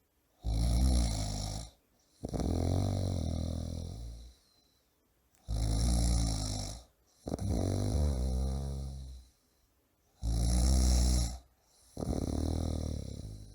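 A man snoring loudly in a steady rhythm: three breath cycles, each a loud, rattling snore followed by a longer snore that fades away, with a short silence before the next.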